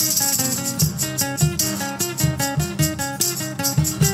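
Two acoustic guitars, one a Guild, playing an instrumental passage: steady rhythmic strumming with a picked melody line moving over it.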